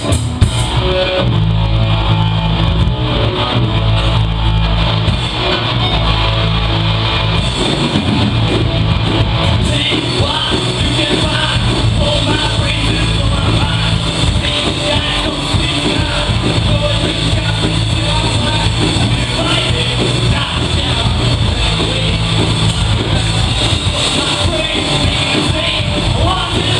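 Rock band playing live: electric guitar over held bass notes, loud and steady throughout.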